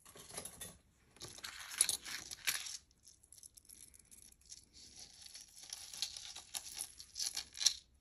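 Packaging rustling and crinkling in three stretches, with small clicks, as pieces of jewelry are handled and unwrapped.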